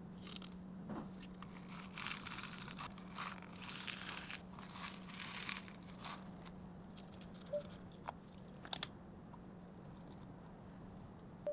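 Squishy stress-ball toy being squeezed and worked by hand: bursts of crackly, crinkling noise between about two and six seconds in, then a few light clicks, over a faint steady hum.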